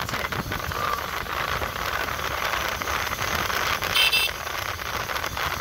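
Steady wind, road and engine noise from riding a motorbike at night. About four seconds in there is a brief high-pitched sound.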